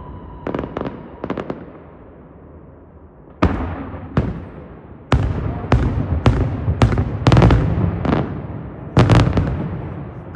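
Daytime fireworks display: a few sharp bangs, a short lull, then from about a third of the way in a rapid run of loud aerial bursts, about two a second, each trailing off in an echo.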